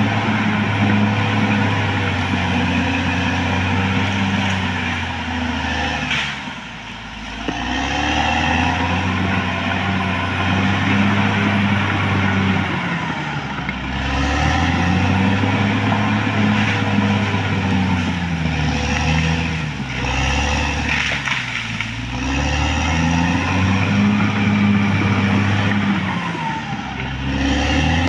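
Caterpillar D6R XL bulldozer's diesel engine running as the machine works, its engine speed repeatedly rising and falling. It eases off briefly about six seconds in, then picks up again.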